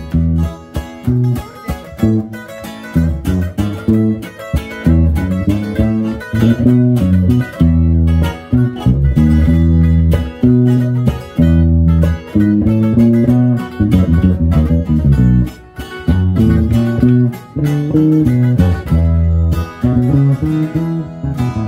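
Instrumental break of a corrido: plucked guitars playing a lively melody over a bass line, with no singing.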